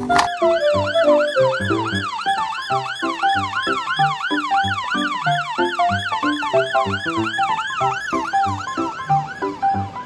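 Fire engine's electronic siren in a fast yelp, rising and falling about three times a second without a break, over background music.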